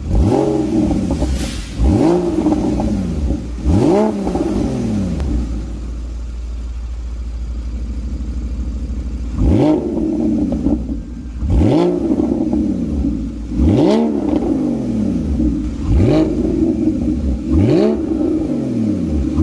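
Porsche 981 Boxster's flat-six revved while stationary through EVOX ValveTronic aftermarket mufflers with the valves open. There are about eight quick throttle blips, each rising and falling back to idle, with a few seconds of steady idle in the middle.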